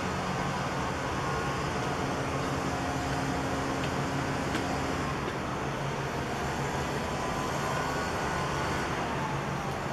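Steady engine drone with a low hum underneath; near the end a faint tone falls slightly in pitch, as from something passing.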